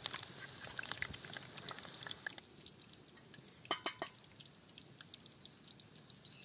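Herb frittata (kookoo sabzi) patties frying in oil: irregular sizzle and crackle that dies down about two seconds in. A little later, three quick clinks of a utensil against the frying pan.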